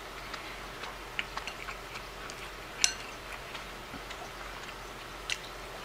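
Chopsticks clicking against a ceramic rice bowl and soft eating sounds, a scatter of small ticks. There is one sharper clink with a short ring about three seconds in, and another near the end.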